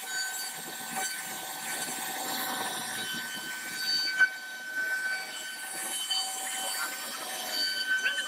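CNC router spindle running with a steady high whine while the bit cuts into khat wood, over a continuous rasping hiss. A single sharp click comes about four seconds in.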